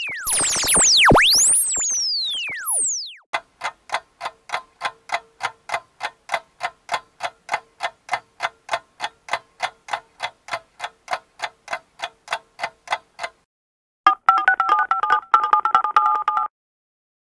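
Synthesized comedy sound effects: sweeping rising and falling whooshes for the first few seconds, then a steady electronic ticking about three times a second for about ten seconds, then a short warbling two-tone synth beep that cuts off suddenly.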